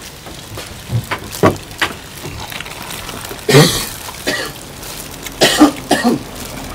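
A person coughing and clearing the throat in several short bursts, the loudest about three and a half seconds in and another cluster near the end.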